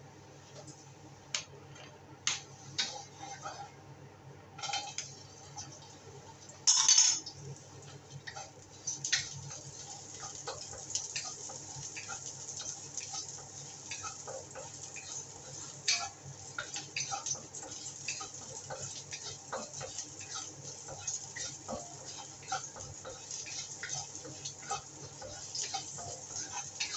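Oil frying in a stainless-steel wok over a gas flame: a loud burst of sizzle about seven seconds in as small pieces of food go into the hot oil, then a steady sizzle full of small crackles as they fry. A few light clicks of utensils on the pan come before it, over a low hum.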